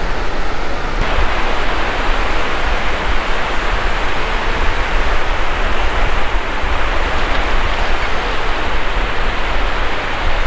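Steady, loud wind on the microphone mixed with breaking surf, with a constant low rumble of wind buffeting. The hiss grows brighter about a second in.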